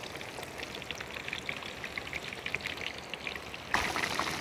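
Hot oil bubbling and crackling as whole chilli-marinated rabbits deep-fry in a large iron kadai, a dense rain-like patter that turns suddenly louder near the end.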